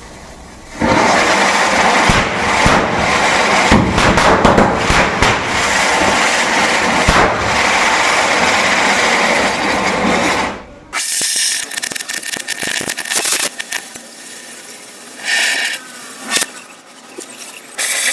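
Burning pyrotechnics giving a loud steady hiss with dense crackling. It starts about a second in and stops abruptly after about ten seconds, leaving a much quieter background with a few short sounds.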